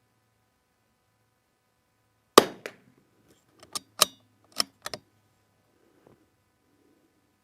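A single .22LR shot from a CZ 455 bolt-action rifle, a sharp crack a little over two seconds in, followed by a run of metallic clicks from the bolt being worked to eject the case and chamber the next round.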